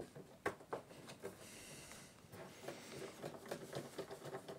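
Screwdriver backing a small screw out of a sheet-metal case, its bit working through a paper warranty-seal sticker: faint clicks and scraping, with a soft hiss-like scrape about one and a half seconds in and light ticking near the end.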